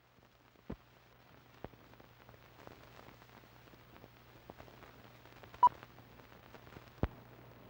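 Soundtrack of an old film countdown leader: a faint hiss and crackle over a steady low hum, with scattered clicks and pops. A single short high beep sounds about five and a half seconds in, the sync beep of the countdown.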